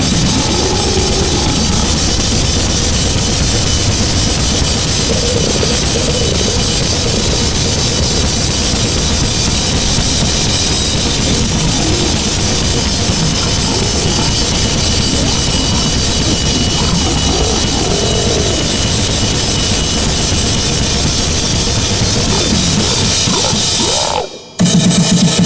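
Harsh, heavily distorted noise music with drums: a dense, steady wall of noise filling every pitch. It cuts out abruptly for a moment near the end, then slams back in loud.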